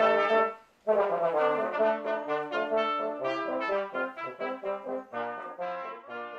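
Brass ensemble of trumpets, French horn and trombones playing. The music breaks off briefly about half a second in, then goes on in short, detached notes that grow gradually quieter.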